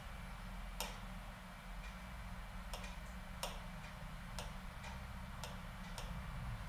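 Chalk tapping and clicking against a blackboard in about six sharp, irregularly spaced taps, over a steady low hum.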